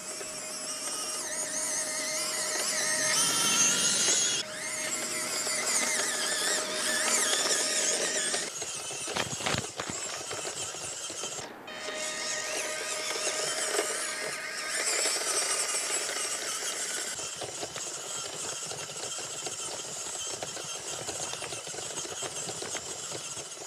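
Small electric drive motor and gearbox of an EAZY RC Triton 4WD RC crawler whining as it drives, the pitch wavering up and down with the throttle.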